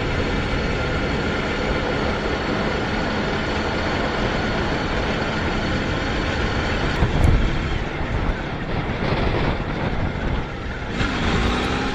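Motorcycle running at road speed, its engine under steady wind rush over the microphone.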